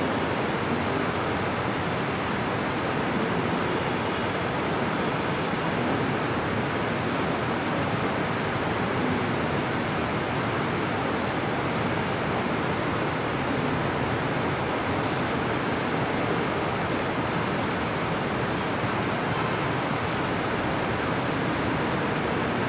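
A steady rushing noise, even and unchanging like running water or a fan, with faint short high chirps every few seconds.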